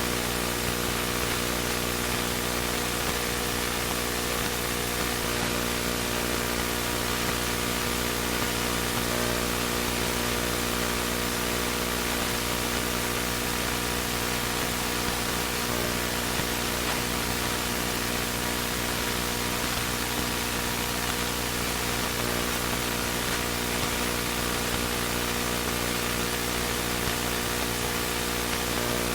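Steady static hiss with a low electrical buzzing hum underneath, unchanging throughout: a dead-air noise bed on a broadcast signal.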